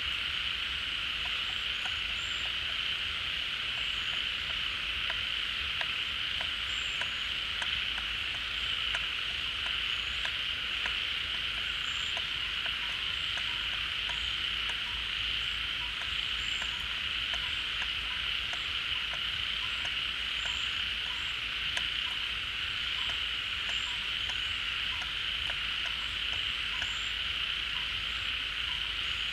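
A dense rainy-season chorus of many frogs calling together at a pond, a steady unbroken din, with short high-pitched chirps and faint ticks scattered through it.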